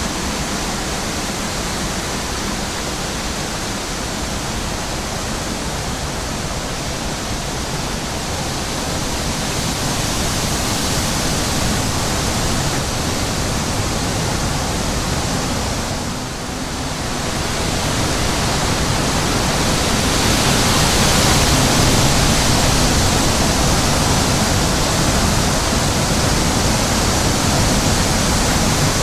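Wind blowing, a steady rushing hiss that dips briefly about halfway through and then grows stronger.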